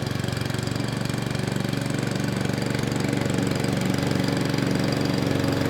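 Small four-stroke petrol lawnmower engine, a 173cc OHV single, running steadily at an even speed.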